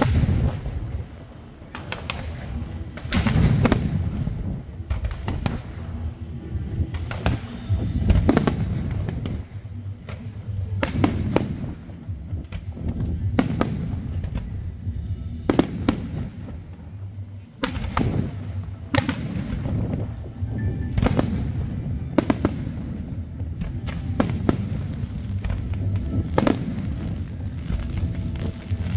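Fireworks display: aerial shells and rockets launching and bursting in a long, irregular string of sharp bangs, often several seconds apart and sometimes in quick clusters, over a continuous low rumble.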